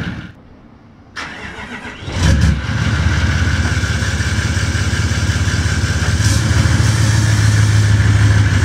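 Toyota Landcruiser 79 Series engine cranking for about a second, catching with a loud burst a little over two seconds in, then running steadily.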